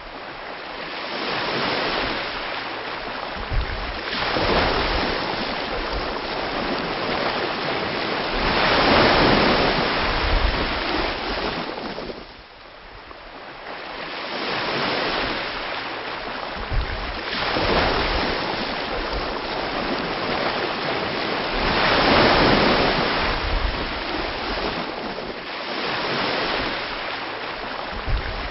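Ocean waves breaking and washing up the shore, the surf swelling and falling away every few seconds, with a few short low thumps.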